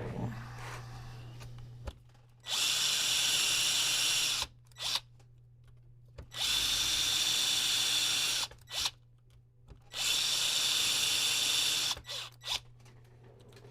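Small electric screwdriver running in three spells of about two seconds, each followed by one or two short blips, as it drives screws into a laptop's screen hinge.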